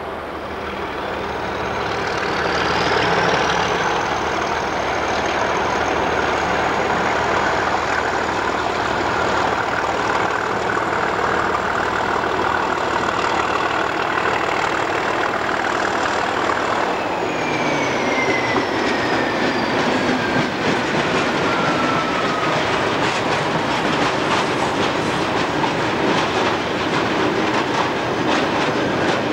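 English Electric Class 37 diesel locomotive pulling away under power with a steel train: a high whistle rises in pitch over the first few seconds and holds over the engine's running, then falls away about two-thirds of the way through as the locomotive goes past. The loaded steel wagons follow, their wheels clicking over the rail joints.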